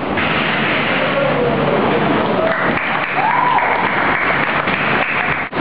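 Audience applauding, with crowd voices mixed in. It starts and stops abruptly.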